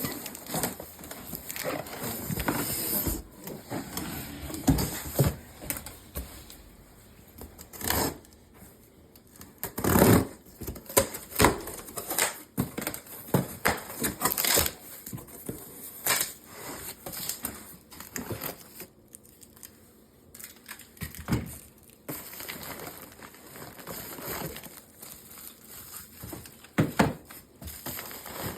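Cardboard shipping box and packing being opened and handled: tape and cardboard tearing, packing material crinkling and scraping, with scattered knocks as parts are moved.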